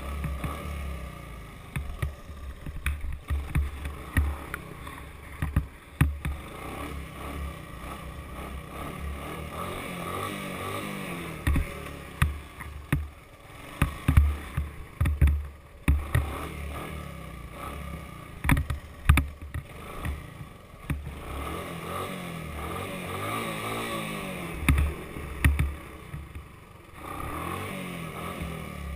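Honda ATC200 three-wheeler's single-cylinder four-stroke engine, heard from a camera mounted on the machine, revving up and easing off again and again while riding across rough grass. Sharp knocks and low thumps from bumps jolting the mount come through the engine noise.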